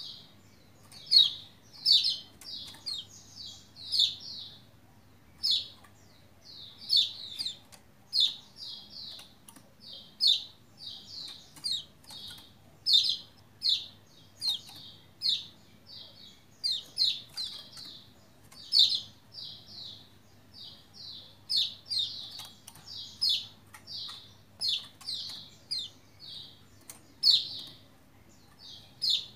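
Pleci Lombok (kecial kuning) white-eye calling vigorously: a continuous run of short, sharp, high 'ciak' chirps in quick groups of two to four, about one group a second.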